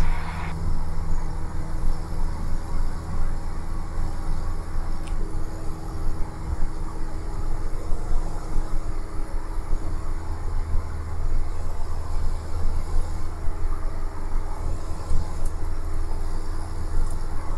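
Cessna 172's engine and propeller running steadily at climb power, heard inside the cabin as a constant low drone.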